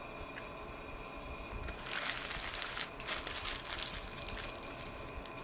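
Paper sandwich wrapper crinkling, a burst of crackly rustling about two seconds in that lasts a second or so.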